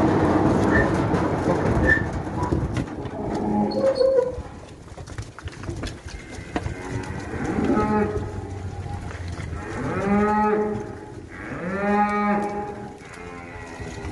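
Holstein-Friesian dairy cows mooing, several long low calls one after another in the second half, the loudest about ten and twelve seconds in. A loud rush of noise fills the first few seconds.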